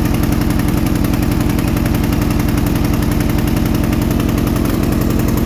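Petrol lawn mower engine running steadily, having started after standing unused for a while.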